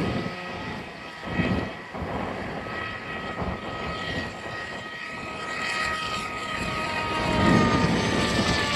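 Electric motor and propeller of an AXN Floater RC plane whining steadily in flight, the pitch drifting a little, with wind rumbling on the microphone that grows louder near the end.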